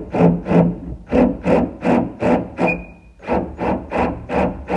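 Quick, regular rasping strokes of a hand file on metal, about three a second with a short pause near the middle, and a brief metallic ring twice.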